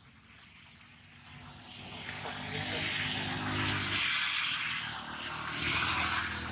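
Aircraft engine drone passing overhead, swelling from about two seconds in and staying loud to the end.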